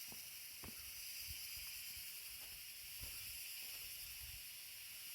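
Steady high hiss lying in several even bands, with faint soft taps scattered through it.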